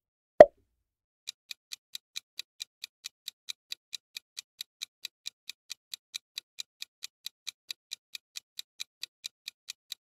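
A single pop sound effect, then a countdown timer's ticking sound effect starting about a second in, steady and even at about four to five ticks a second.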